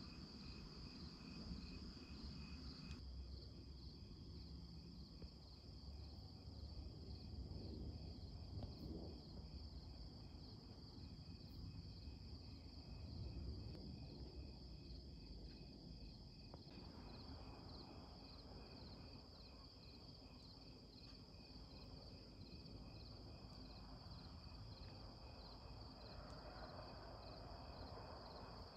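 Crickets chirping in a steady, even pulse, faint, over a low rumble.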